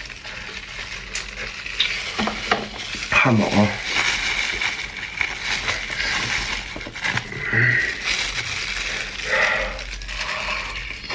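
Plastic crinkling and paper rustling as a gloved hand handles a paper takeaway box and plastic wrapping, with many small crackles and clicks. A short falling vocal sound about three seconds in, and brief voice sounds later.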